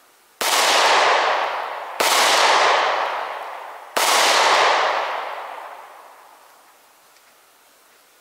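Three 9mm pistol shots fired at a steady pace, about one every two seconds, each trailing off over a second or more.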